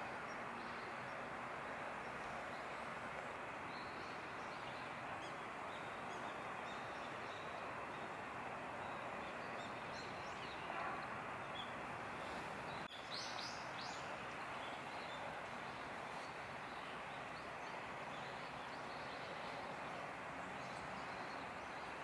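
Steady outdoor background hiss with brief, high bird chirps scattered through the middle. A short cluster of sharper chirps comes a little past halfway, just after a single click.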